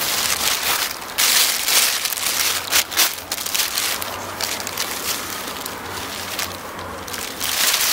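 Thin plastic bag crinkling and rustling in the hands as it is opened out and handled, in irregular, loud surges.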